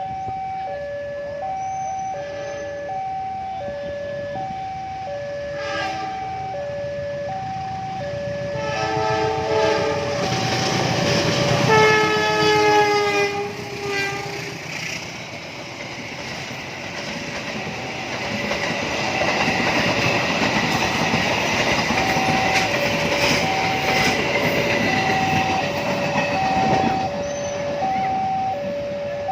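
A railway level-crossing warning signal chimes steadily in two alternating tones. About nine seconds in, a train horn sounds for several seconds. A train then passes with rumbling wheel and rail noise for most of the second half.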